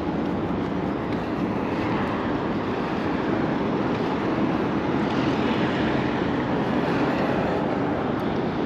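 Steady road traffic noise from cars on a busy multi-lane road, an even, unbroken rush without distinct passes or horns.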